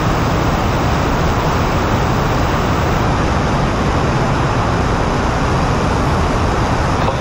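NASA Space Launch System five-segment solid rocket booster firing on a horizontal static test stand: a steady, loud rush of noise, heaviest in the low end.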